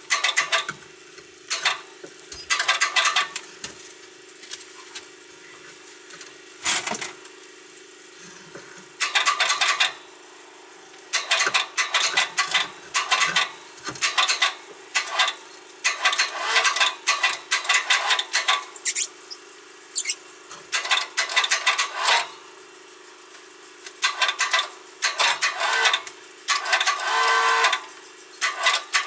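Manual chain hoist being worked in repeated bursts of fast rattling clicks as the hand chain is hauled, with short pauses between pulls, while it lifts a boat's inboard engine out of its bay.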